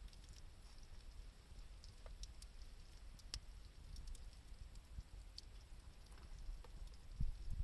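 Faint wood campfire crackling, with a few scattered sharp pops over a low steady rumble, and a soft low thump near the end.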